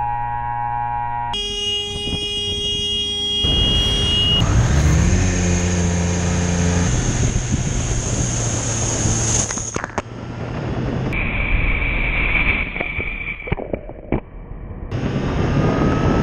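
Road traffic heard from a moving motorcycle, with engine and road noise and vehicle horns sounding in long, steady notes. The sound changes abruptly several times.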